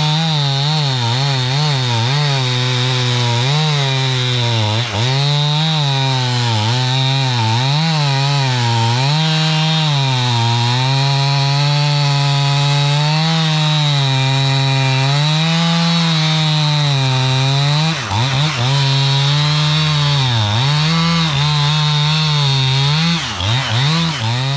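STIHL 500i two-stroke chainsaw at high revs, bucking a large log into rounds. Its engine note sags and recovers again and again as the chain loads up in the cut, with a few quick throttle dips near the end.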